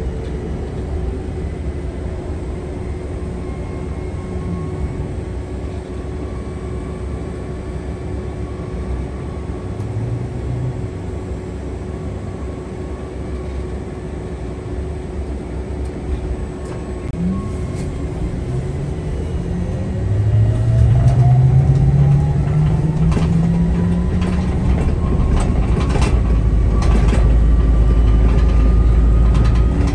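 Inside a moving city bus: a steady low drivetrain rumble with road noise, then, from a little past halfway, a whine that climbs steadily in pitch and grows louder as the bus speeds up. A few sharp rattles come near the end.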